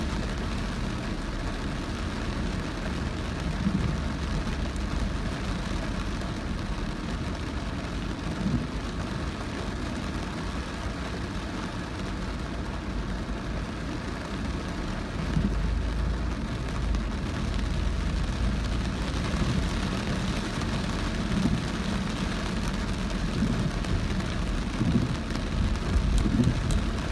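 Car driving through very heavy rain: steady rain noise over the low rumble of the car and its tyres on the wet road, with occasional soft low thumps that come more often near the end.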